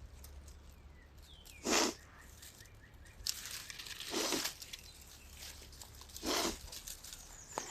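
Three sharp sniffs through a nose congested by allergies, roughly two seconds apart, with faint rustling in between.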